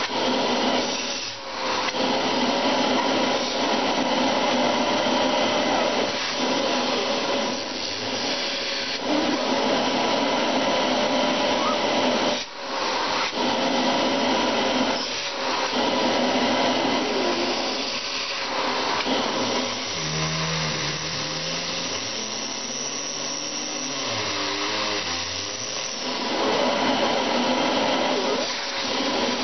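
Vacuum cleaner running steadily, a loud drone with a slightly wavering whine and a few brief dips in level. About twenty seconds in, a lower wavering pitched sound joins it for several seconds.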